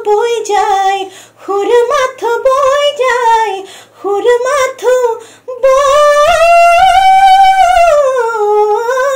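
A woman singing an Assamese modern song unaccompanied: short melodic phrases with brief breaths between them, then from a little past halfway one long held note that swells up in pitch and slides back down near the end.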